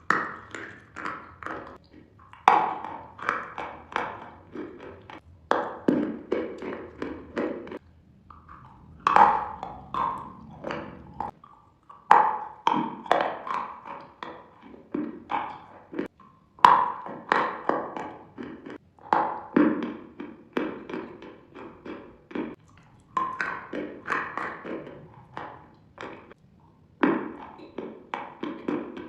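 Hard candy sticks being bitten and crunched close to the microphone: bursts of sharp, crackling crunches every few seconds, each loud at first and then trailing off in smaller cracks as the pieces are chewed.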